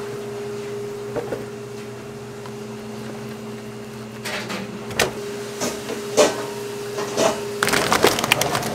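Commercial kitchen work: scattered knocks and clatter of utensils and equipment over a steady mechanical hum, turning into a busier run of clattering near the end.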